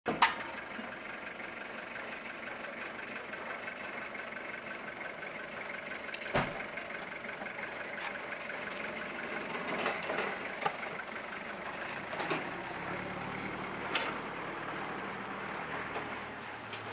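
Outdoor background noise with a motor vehicle engine running at a distance, its low hum growing in the last few seconds, and a few sharp knocks.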